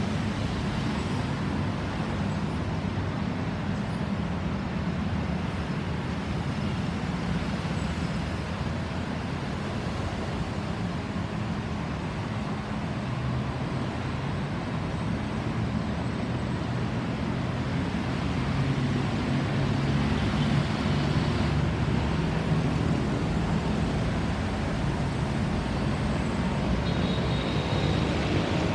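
Steady road traffic noise, mostly a low rumble of vehicles, with no siren sweeping.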